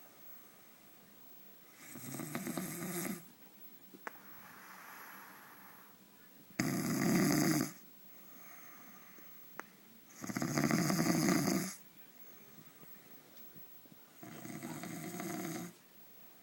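A man snoring in his sleep: four loud snores about four seconds apart, with softer breathing in between.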